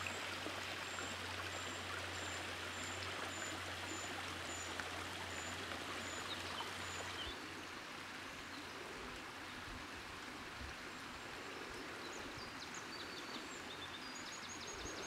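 Shallow runoff water running over a flooded, muddy woodland path, a steady rushing with a low hum under it and a bird's high note repeating about twice a second. About seven seconds in the sound drops to a quieter steady hiss, with small birds chirping near the end.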